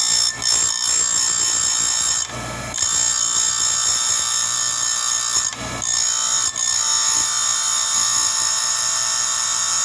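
Chain grinder's CBN wheel grinding saw-chain cutters: a steady, high-pitched grinding whine in three passes, broken twice by short gaps as the wheel is pulled away from the tooth.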